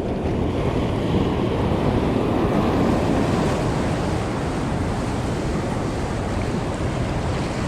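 Ocean swell breaking and washing over rocks in a long, rising rush that peaks a few seconds in and then eases, with wind buffeting the microphone.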